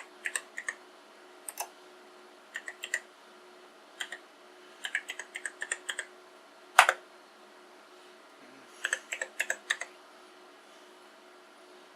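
Apple Macintosh Plus M0110A keyboard keys being pressed one at a time, sharp clicks in short groups and quicker runs with pauses between, as freshly repaired switches are tested key by key. One press about seven seconds in is much louder than the rest.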